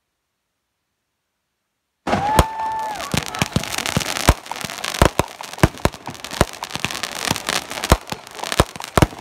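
Aerial fireworks going off. About two seconds in, after dead silence, the sound cuts in with a steady whistle lasting about a second. Then comes a rapid, irregular run of sharp bangs over continuous crackling.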